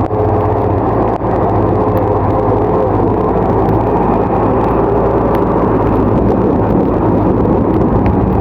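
Bulldozer's diesel engine running steadily under load, a low even drone with faint clicks.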